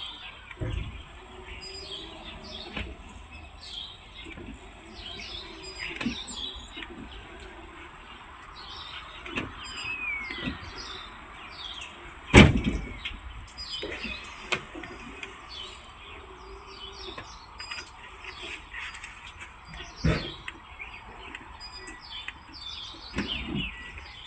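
Birds chirping and calling again and again, over a steady thin high tone. A sharp knock about twelve seconds in, the loudest sound, and a smaller one about twenty seconds in.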